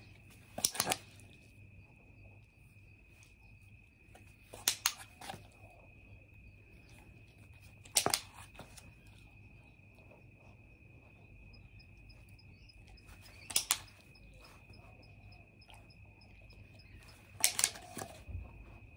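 Handheld dog-training clicker pressed five times, a few seconds apart, each a sharp double click, marking the moments the dog gets the exercise right.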